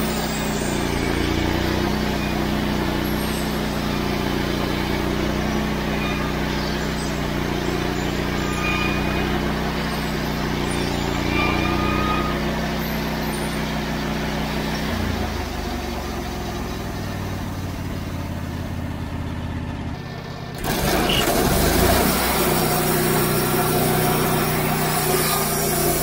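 Wood-Mizer LX150 portable bandsaw mill running steadily, its engine and band blade sawing crosscut slices off a softwood log. The sound shifts about fifteen seconds in and changes abruptly about twenty seconds in.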